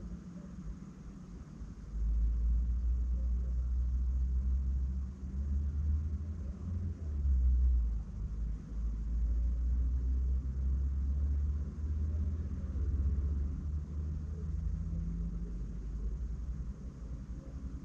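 Deep rumble that starts abruptly about two seconds in and runs on, swelling and easing a little.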